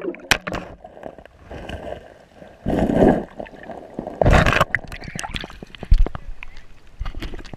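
GoPro action camera submerged in the river shallows, its mic picking up muffled gurgling and sloshing water with sharp knocks as the case bumps against rocks. There are two louder rushes of water, about three and about four and a half seconds in.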